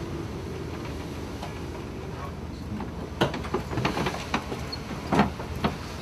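Steady low rumble of a ship under way. From about halfway through comes a series of sharp knocks and clatters.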